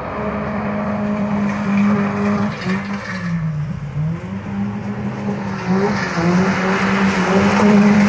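Small hatchback car's engine revving hard as it is driven on loose wet gravel, the revs dipping briefly about three seconds in and again near six seconds before climbing back, with a hiss of tyres on the gravel underneath.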